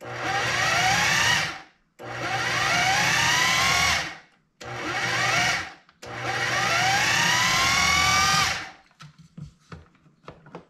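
KitchenAid food processor pulsed four times, the motor whining up in pitch on each press as the blade chops a thick dip mixture; the last pulse is the longest. A few light clicks follow near the end as the lid is handled.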